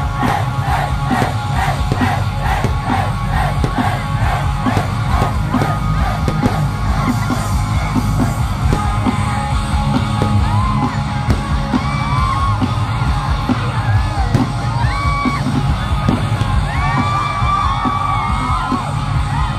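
Live rock band playing loud through a PA, heard from inside the crowd, with the crowd yelling and whooping. A steady beat of about three strokes a second runs through the first half, then voices singing and shouting come in over the music in the second half.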